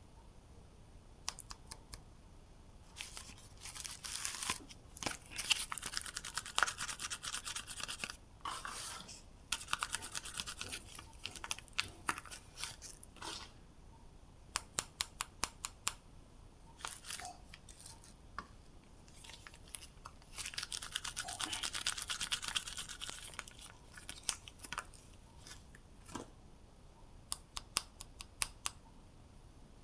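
Soap bar wrappers being unwrapped by hand: the wrapping rustles and tears in several spells, with light clicks and taps between them.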